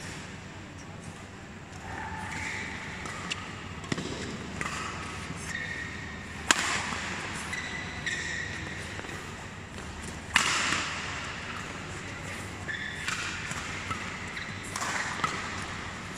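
Badminton doubles rally: rackets striking the shuttlecock in sharp cracks, the two loudest about six and a half and ten seconds in. Between the strokes, shoes squeak briefly on the court mat.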